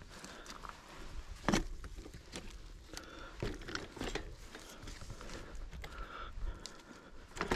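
Irregular crunches and knocks of a mountain biker moving over a rough trail, with the sharpest knock about one and a half seconds in.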